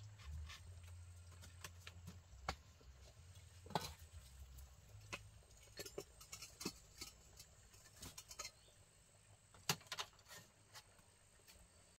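Faint scattered clicks and knocks of cookware and bamboo being handled: a lidded pot and a bowl picked up and set down on a bamboo-slat shelf, with two sharp knocks close together near the end. A low rumble runs under the first half.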